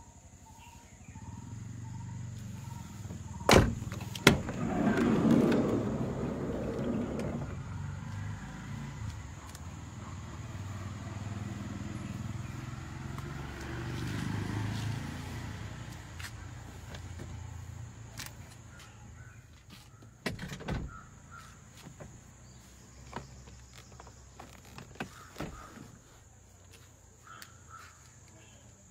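Clunks and rumbling from a Nissan Caravan E25 van's body being handled: two sharp latch clicks about three and a half seconds in, a rolling rumble right after them, and scattered knocks and clicks later on.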